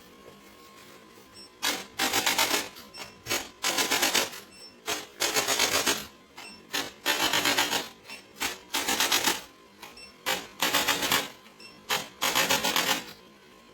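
A rapid mechanical buzzing rattle that comes in about eight separate bursts of roughly a second each, with short pauses between them.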